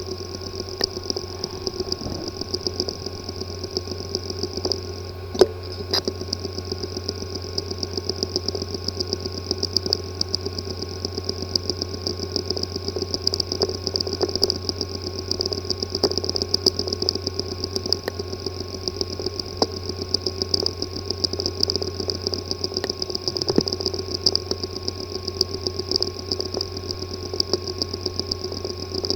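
Hard drive with a physically damaged disk assembly, running with a steady buzz and a very rapid, even ticking, with a sharper click about five and a half seconds in: the clicking-and-buzzing symptom of internal head/platter damage.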